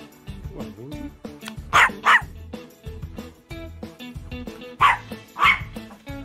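Small Chihuahua–Yorkie mix (chorkie) barking loudly: two sharp barks about two seconds in and two more about five seconds in, over guitar background music.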